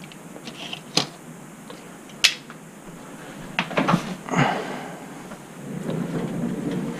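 Scattered sharp clicks and knocks from handling things at a cluttered computer desk, with rustling movement noise from a body-worn camera near the end.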